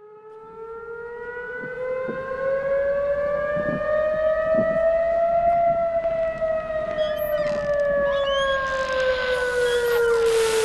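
Air-raid siren wailing: it fades in, slowly rises in pitch for about five seconds, then slowly falls.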